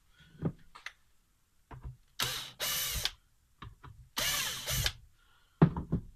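Power screwdriver running in two short bursts, about two and four seconds in, backing out screws from the side cover of a wood planer. Sharp knocks and taps of the tool and the plastic casing being handled come in between and near the end.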